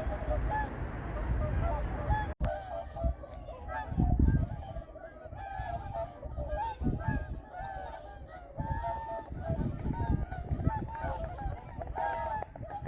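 A flock of whooper swans calling: many short, overlapping honking calls throughout, with bursts of low rumble, the loudest about four seconds in.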